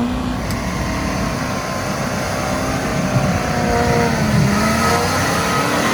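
Off-road 4x4's engine revving, its pitch rising and falling several times under load. From about half a second in a steady hiss runs over it.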